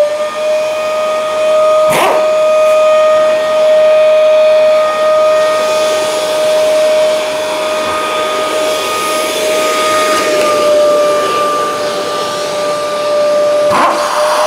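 Workshop dust-extraction vacuum (shop vac) running steadily with a high, even whine, at full speed after just starting. There is a sharp click about two seconds in and a knock near the end.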